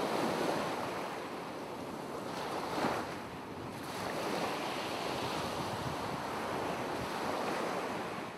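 Ocean surf washing steadily, with one wave swelling up about three seconds in.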